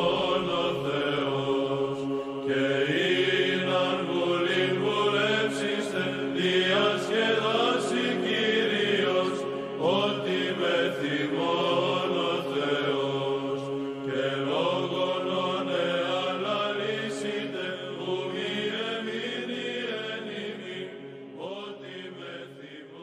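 Chanted vocal music over a steady held low drone, with voices sliding between notes; it fades out near the end.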